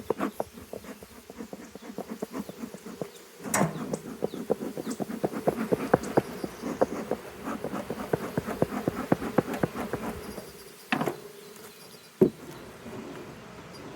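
Honey bees buzzing around an open hive, mixed with dense rapid clicking and a few louder knocks, about three and a half seconds in and twice near the end.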